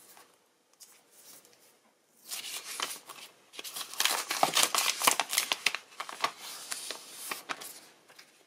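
Thin plastic protective film being peeled off a smartphone, crackling and crinkling. Light handling for about the first two seconds, then a dense run of crackles, loudest around the middle and thinning out near the end.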